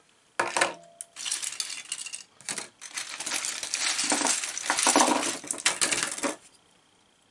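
Loose plastic LEGO bricks clattering and rattling as a hand rummages through a zip bag of them and pulls pieces out onto a table: a dense run of small plastic clicks that stops about six seconds in.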